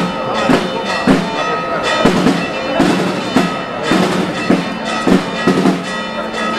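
Brass band of trumpets, euphoniums and tuba playing a march in the open air, with sustained chords over a regular beat about twice a second.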